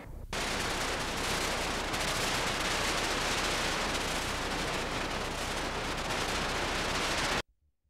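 Steady, loud static hiss from blank or unrecorded VHS tape playing back after the recording ends. It starts abruptly and cuts off suddenly near the end.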